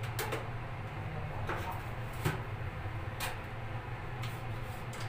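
A few light clicks and knocks, roughly one a second, as trays of a tension-pole corner shower shelf are adjusted and fitted on the pole, over a steady low hum.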